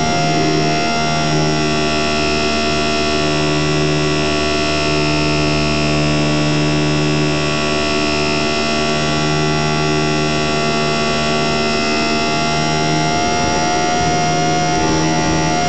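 HobbyZone Super Cub RC plane's electric motor and propeller running steadily in flight, heard from a camera on board: a loud whining hum with small shifts in pitch.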